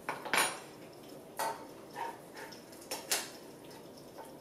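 Metal kitchen tongs clinking against a wok and scraping through spiralised daikon noodles, about six short, sharp clinks spread over three seconds, the loudest near the start.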